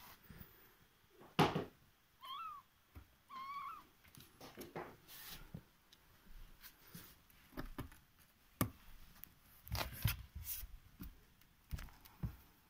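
A tabby kitten mewing twice, short high calls that rise and fall, among scattered knocks and rustling; the loudest sound is a knock just before the first mew.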